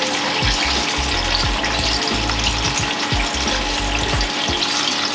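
Batter-coated apple fritters deep-frying in hot oil, with a steady, dense sizzling crackle.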